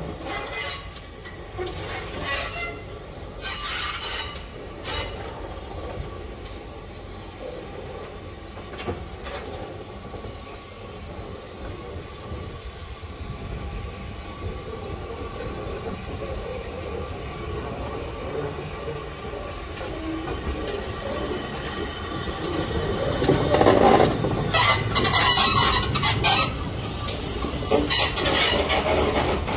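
BR Fairburn 2-6-4T steam tank locomotive running slowly along the track, growing steadily louder as it draws near, with loud rushes of sound in the last few seconds as it comes close.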